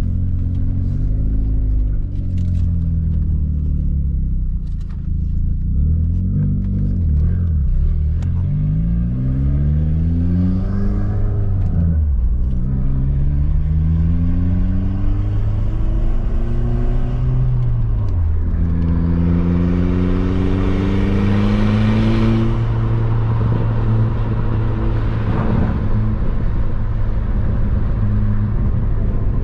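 Audi B5's engine accelerating through the gears, its note rising in pitch and dropping back at each upshift, loudest in a hard pull about two-thirds through, then settling to a steady cruise.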